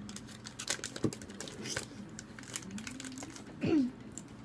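Drinking through a straw from a glass bottle: scattered small clicks and sipping mouth sounds, with a short falling voice-like hum a little before the end.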